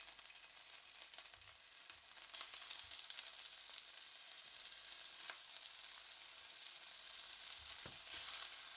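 Boiled rice sizzling in hot oil in a nonstick pan: a faint, steady frying hiss with light crackles. It gets louder near the end as a spatula spreads the rice.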